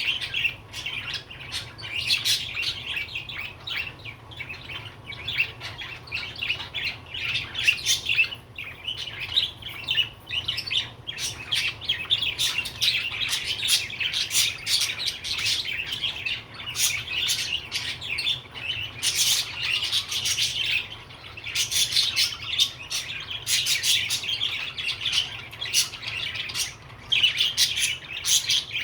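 Budgerigar warbling and chattering almost without a break: a fast, busy stream of short chirps and clicks, with a few brief lulls.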